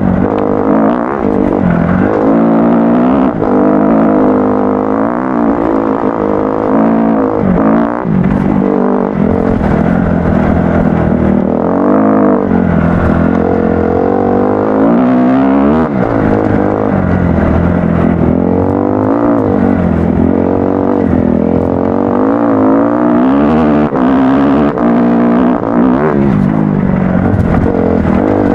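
Kawasaki KX-F four-stroke motocross bike engine revving up and down while being ridden, its pitch rising and falling every second or so with the throttle.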